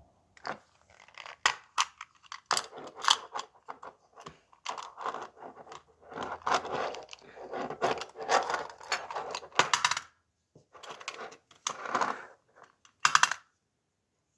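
Packaging being handled and torn open close up: irregular crinkling and rustling with sharp clicks and rattles, stopping near the end.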